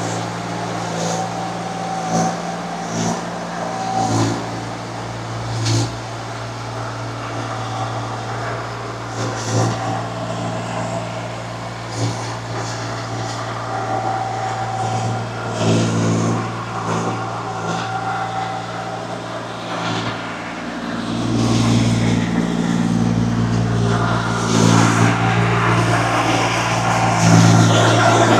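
Small diesel engine of a compact earthmoving machine (mini excavator or skid loader) running steadily under work, with scattered knocks and clanks from the machine working the ground. The engine grows louder about three-quarters of the way through, as it comes under more load.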